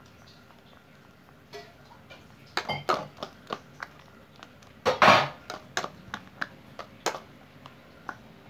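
Steel ladle stirring a wet chickpea mixture in a stainless steel bowl: sharp clinks and scrapes of metal on metal, starting a couple of seconds in, with one louder, longer scrape about halfway.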